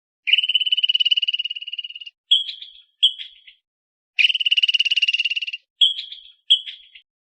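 High-pitched animal call with a rapid pulsing trill: one long trill of about two seconds, then two short trills, and the pattern comes twice.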